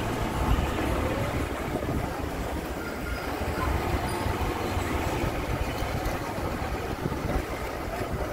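Steady road noise from a moving vehicle driving through city traffic: a continuous low rumble with no distinct events.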